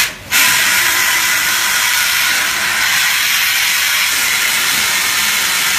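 Compressed-air blow gun hissing as it blasts die-cut waste strips out of a stack of cardboard sheets. A short blast at the start, a brief break, then one long continuous blast.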